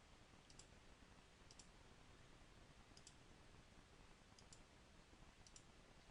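Faint computer mouse clicks, five in all, each a quick double tick, over near-silent room tone.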